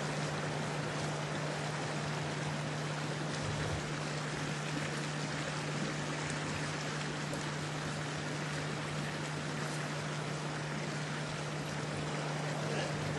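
Steady outdoor background noise, an even hiss with a constant low hum underneath and no distinct events.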